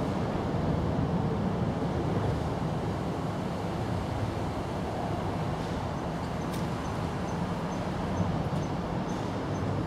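Steady low rumble of outdoor background noise, like distant traffic. From about halfway through, a faint high-pitched tick repeats about three times a second.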